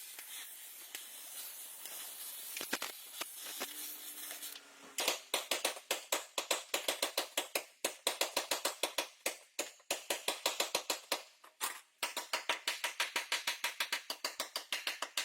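Rapid, even mechanical clicking from a hand tool at work, about four clicks a second, starting about five seconds in. Before that there is a softer hiss with scattered clicks.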